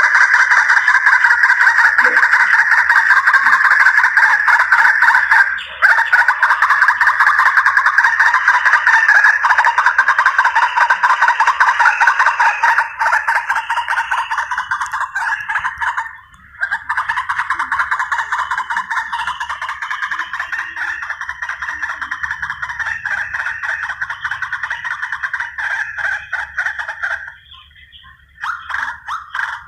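White-breasted waterhen (ruak-ruak) calling: a loud, rapid, continuous chatter of harsh repeated notes, as used for a hunting lure call. It breaks off briefly about six, sixteen and twenty-seven seconds in.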